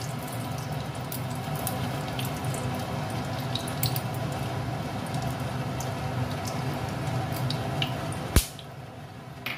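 Cooking oil spooned into a hot kadai: small drips and crackles over a steady low hiss. A sharp click comes near the end, after which the hiss drops.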